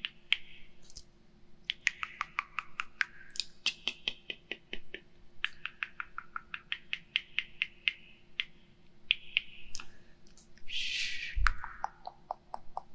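Hair scissors snipping right at a binaural microphone in quick runs of sharp clicks. A brief rush of noise with a low thump comes near the end.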